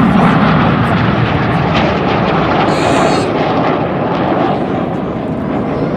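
Red Arrows' BAE Hawk T1 jets flying by, a loud jet roar that slowly fades.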